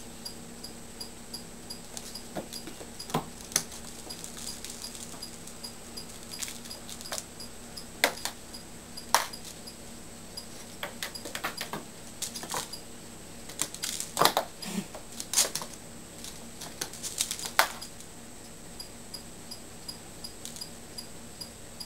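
A kitten scampering and pouncing on a laminate floor while batting at a toy on a stick: irregular light taps and clicks, with a few sharper knocks in the middle.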